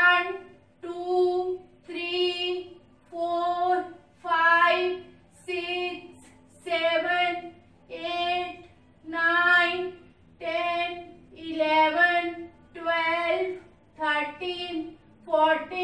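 A woman's voice slowly counting the hold aloud in a sing-song chant, one drawn-out number about every second.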